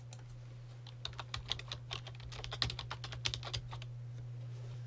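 Computer keyboard being typed on: a quick run of keystrokes, a web address typed into a browser's address bar, starting about a second in and lasting about three seconds. A steady low hum runs underneath.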